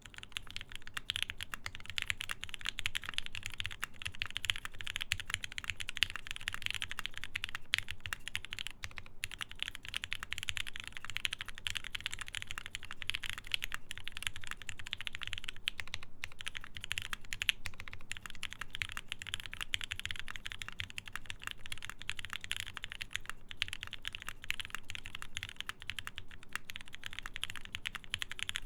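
Continuous fast typing on a Geonworks F1-8X mechanical keyboard with a full aluminium plate, lubed Gateron Ink linear switches and cherry-profile PBT keycaps, a dense stream of keystroke clacks with brief pauses about nine and sixteen seconds in.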